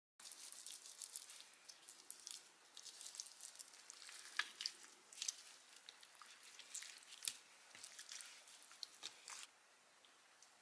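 Gloved hand squeezing and pressing raw chicken thighs in their marinade in a metal tray: faint wet squishing with irregular sticky crackles and pops, easing off near the end.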